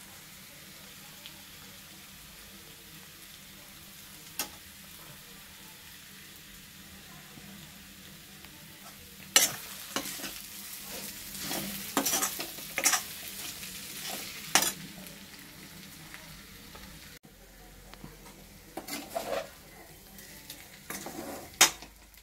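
Chicken masala sizzling as it fries in coconut oil in an iron kadai, a steady sizzle. A spatula scrapes and knocks against the pan in several quick strokes: once early, a cluster in the middle, and a few more near the end.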